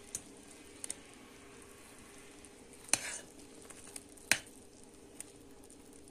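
Thickened pine-cone sugar syrup bubbling and sizzling faintly in the pot, the heat just turned off, with a few sharp clicks and a steady low hum behind.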